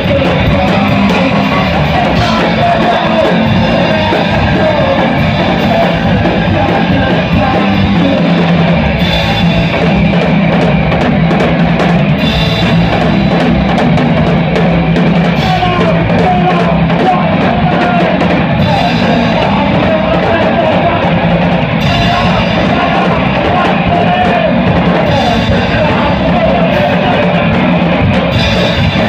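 Live rock band playing loudly, with the drum kit to the fore and cymbal crashes every few seconds.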